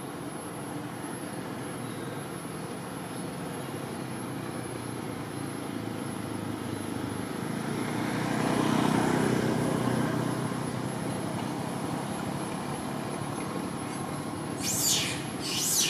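A motor vehicle passing: its engine and road noise grow louder to a peak about halfway through, then fade. Near the end come two short high-pitched calls, and a thin high whine runs steadily underneath.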